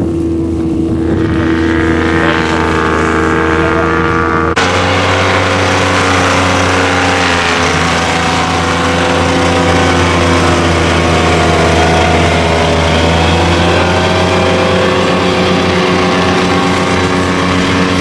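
Diesel engine of a tracked harvesting machine running steadily. About four and a half seconds in, the sound switches abruptly to a fuller, noisier version of the same engine.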